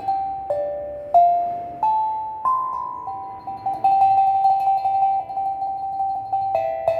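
Steel tongue drum played in a slow, spontaneous melody: single struck notes step upward one after another, each ringing out and fading, then about halfway through a quick run of repeated taps on one note, with a lower note joining near the end.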